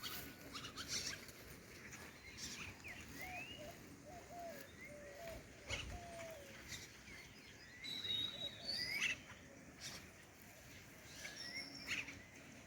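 Wild birds calling outdoors: short rising and falling chirps scattered throughout, with a run of about six short, lower notes a few seconds in. A few sharp clicks are heard among them.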